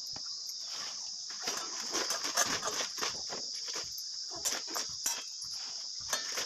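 Fresh mustard and taro leaves torn and crumpled by hand into a steel plate, a run of irregular crackles and rustles, thickest in the middle. Crickets chirp steadily behind it.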